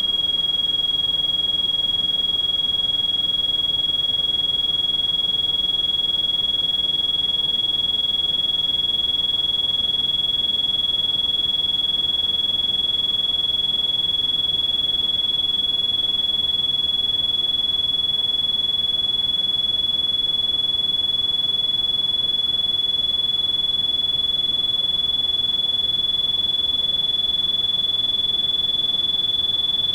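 A synthesized high-pitched pure tone held without a break, drifting slightly up in pitch during the first half and then holding steady. Underneath it is a faint, even hiss of pink noise. This is a tinnitus-masking therapy tone.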